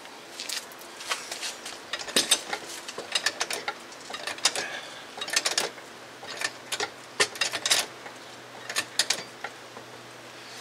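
A car jack being pumped to raise the vehicle: metallic clicks and clunks in uneven clusters about once a second.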